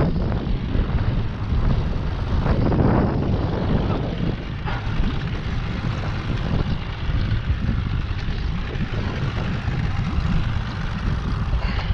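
Wind buffeting an open microphone on a small boat: a steady, rough rumble.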